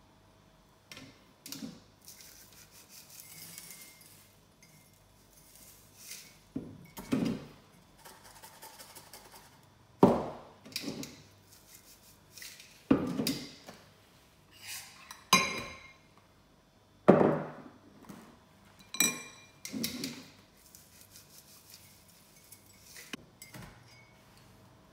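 A blender jar knocking and clinking against a mug as crushed cornflakes are tipped and shaken out of it. The knocks come irregularly, and two of them ring briefly like a clink.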